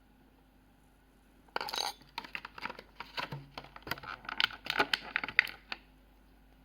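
Hands unpacking perfume: a brief rustle of packaging about a second and a half in, then a run of light clicks and clinks of hard items being handled, stopping shortly before the end.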